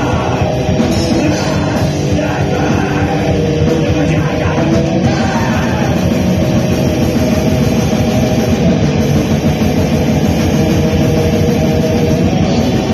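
A black metal band playing loud, continuous music on distorted electric guitars and a drum kit.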